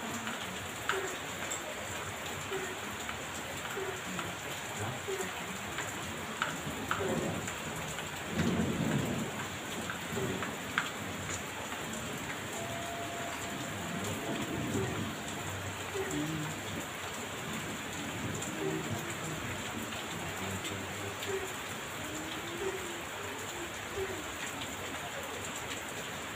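Heavy rain falling steadily on surfaces, with drips ticking, and low rolls of thunder about eight seconds in and again around fourteen seconds.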